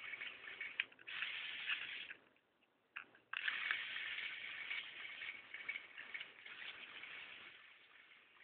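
Lego Power Functions electric motors whirring as they drive the excavator's linear actuators to raise the boom. The whirring stops for about a second around two seconds in, then starts again and grows fainter near the end.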